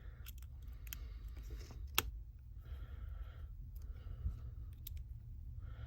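Light clicks and scraping of small hand tools working on a smartphone's internal parts, with one sharp tap about two seconds in, over a low steady hum.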